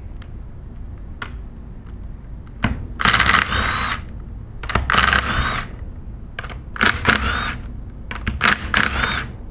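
3/8-inch drive impact gun running in four short bursts of about a second or less, loosening the bolts that hold the discharge manifold on a plastic air-operated double diaphragm pump. A few light clicks of handling come before the first burst.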